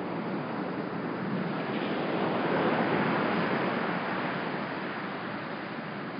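Small, choppy ocean surf breaking and washing ashore, swelling to a peak about two to three seconds in and then easing off.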